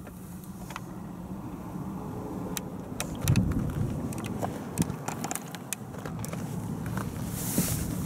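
Handling noise from a handheld camera being moved around inside a car: scattered clicks and rustles over a low steady hum, with a dull thump about three seconds in and a rush of hiss near the end.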